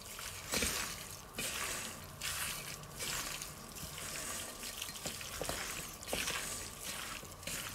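A gloved hand tossing and squeezing oiled, spiced chicken strips in a stainless-steel bowl: irregular wet squelching and slapping.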